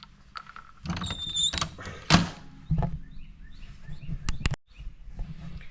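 MEC Grabber shotshell reloading press being handled: scattered metal clicks and clunks with short scrapes, a sharp click about two seconds in and two quick clicks near the end.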